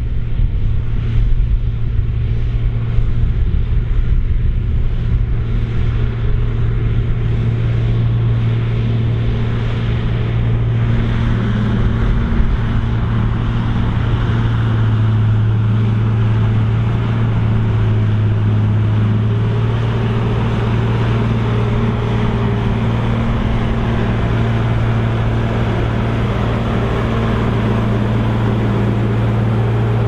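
Diesel engine of a loaded tracked dumper working through deep mud, a steady deep drone. About a third of the way in, more rumbling and clatter builds up as the machine comes close.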